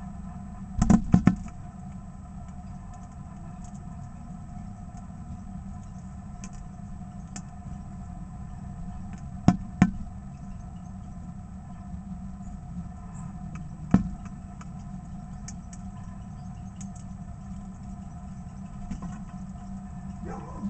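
Steady low mechanical hum like an idling engine, broken by sharp taps on the clear feeder tray from a feeding northern cardinal: a quick cluster about a second in, two more around the middle, and a single one a few seconds later.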